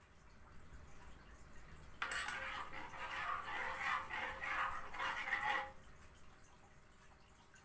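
Metal spoon stirring and scraping thick rice-milk cream in a small nonstick saucepan, a wet scraping and sloshing that starts about two seconds in and stops a little before six seconds.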